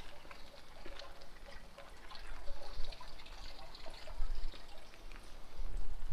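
Rain dripping and trickling, with many scattered drops ticking, over gusts of wind rumbling on the microphone.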